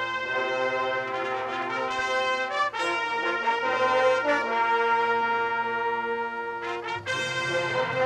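Marching band brass section playing held chords, moving to a new chord every two to three seconds, with a fuller, lower chord coming in near the end.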